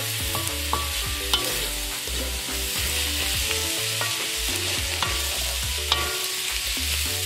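Chopped vegetables (onions, tomatoes and peppers) sizzling in oil in a nonstick wok as a wooden spatula stirs them. The spatula knocks sharply against the pan a few times.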